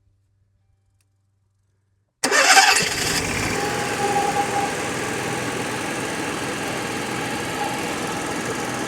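Onan QG 5500 RV generator cranking and catching about two seconds in, then running steadily. It starts now that the air has been purged from its fuel line, where it had stopped the engine picking up fuel.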